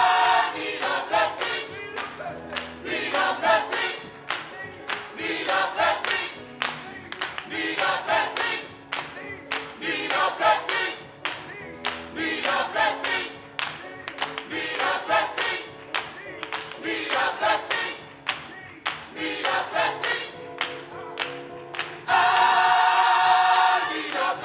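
Choir singing gospel music over instrumental accompaniment, with a steady beat of sharp hits running through it. A loud held chord sounds at the start and again near the end.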